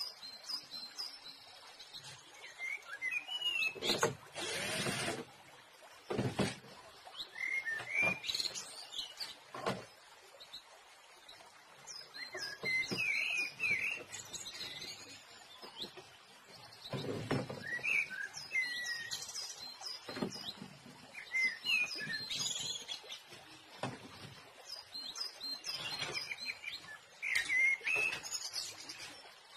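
Small birds chirping again and again, over scattered knocks and rattles from handling and screwing down a plastic TV back cover.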